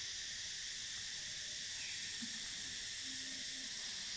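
Steady high hiss of background room noise, with a couple of faint, short low sounds in the second half.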